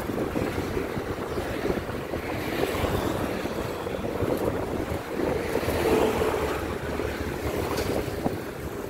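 Wind buffeting the microphone of a moving vehicle, a steady rumble mixed with the engine and tyre noise of surrounding road traffic. A faint engine tone rises out of it for a moment about six seconds in.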